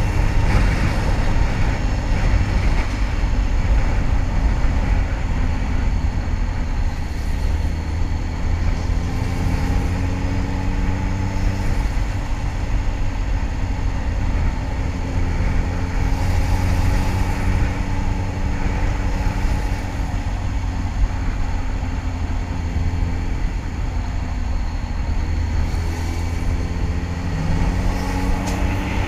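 Kawasaki ZX-10R sport bike's inline-four engine running while riding, its pitch rising and falling gently with the throttle, under a heavy low rush of wind on the helmet microphone.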